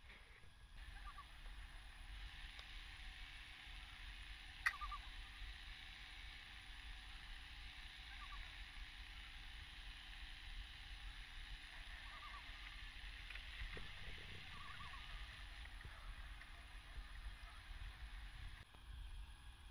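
Quiet lake ambience: a faint steady hiss with a few short, distant bird calls scattered through it, and a single sharp click about four and a half seconds in.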